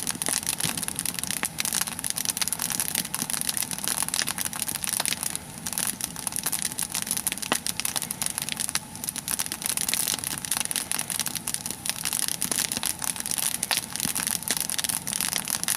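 A nodya log fire burning, crackling steadily with many small pops.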